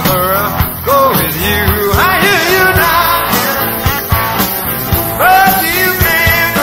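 Live rock band playing, with drum hits under melody notes that bend up and down in pitch.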